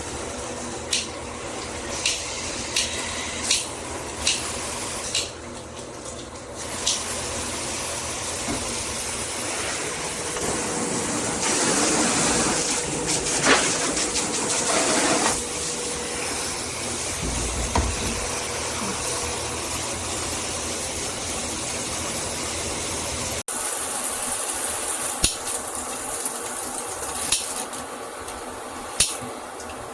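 Water spraying steadily from a handheld shower head, louder for a few seconds in the middle, with sharp clicks or taps now and then.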